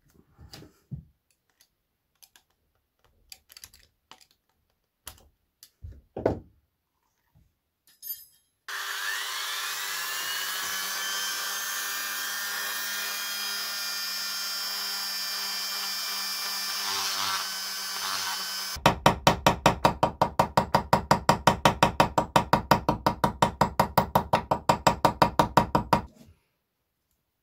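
Light scraping and clicking of hand work, then a handheld rotary tool spins up with a rising whine about nine seconds in and grinds at a steady high pitch for about ten seconds. It gives way to rapid, even hand-sawing strokes, about five a second, which stop shortly before the end.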